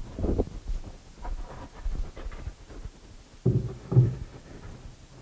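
Dull thumps and knocks on wood as a scalloped wooden piece is handled and tapped into place in a plywood cabinet case, several scattered knocks with the two loudest about three and a half and four seconds in.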